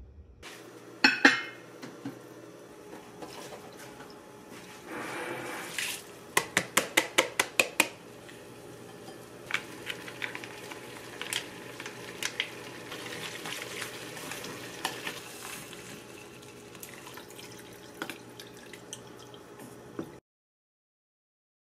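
Food preparation in a large ceramic bowl: sauce squeezed from a pouch and konjac noodles stirred with a wooden spoon and chopsticks, with a sharp knock about a second in, a quick run of about ten ticks between six and eight seconds, and scattered light clicks of utensils on the bowl.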